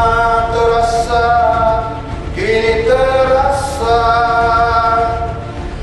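Vocal music: a singer holding long notes, with short breaks between phrases.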